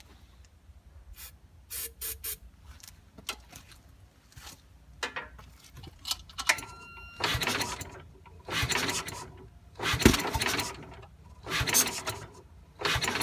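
Tecumseh HH120 single-cylinder engine of a 1968 Sears Suburban 12 tractor being cranked in short repeated bursts, about a second each with brief pauses, after some scattered clicks and a short squeak. It turns over too slowly to catch even on a strong new battery, which the owner can't explain and half suspects is too much compression.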